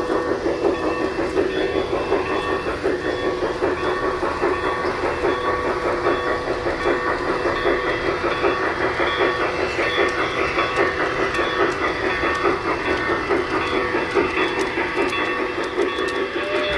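Large-scale garden model steam train running on its track: the locomotive's electric motor and gears whir steadily, with a fast even clicking rhythm of wheels over the rails.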